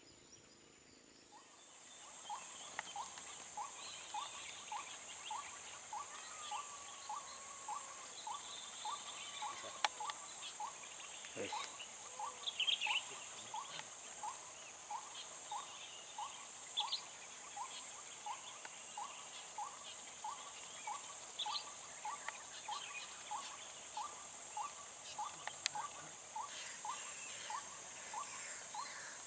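A very regular run of short, rising call notes, a little over two a second, over a steady high-pitched insect drone, with scattered higher chirps and a single sharp click near the end.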